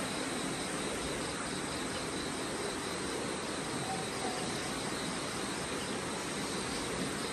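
Steady chorus of insects trilling over an even background hiss.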